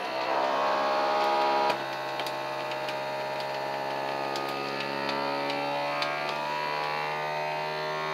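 FoodSaver vacuum sealer's pump starting suddenly and running with a steady hum as it draws the air out of the bag. It drops slightly in loudness a little under two seconds in, then holds steady.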